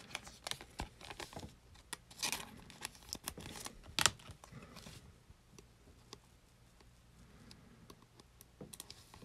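Trading cards and their clear plastic pack wrapping being handled: soft crinkling and small clicks of card stock and plastic, busiest in the first half, with one sharper click about four seconds in, then only scattered light ticks.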